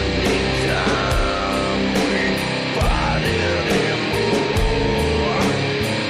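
Heavy rock or metal music with distorted electric guitars and drums, steady cymbal hits.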